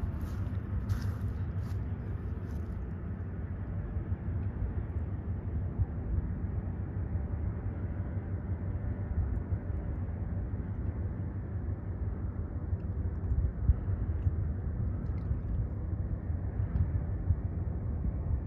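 Low, steady rumble of a passing bulk-carrier freighter's engine.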